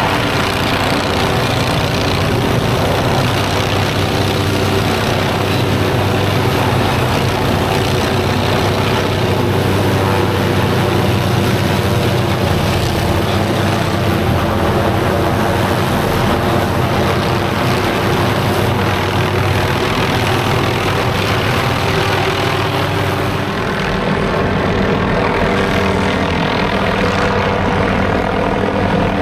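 MD 500D turbine helicopter running steadily at close range during aerial saw tree-trimming passes, its rotor and engine sound continuous and loud.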